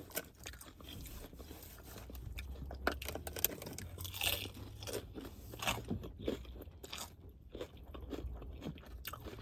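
A person chewing a mouthful of crunchy nachos, with irregular crunches throughout.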